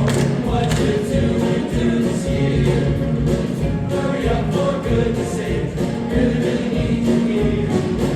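Choir singing, many voices holding sustained chords with musical accompaniment.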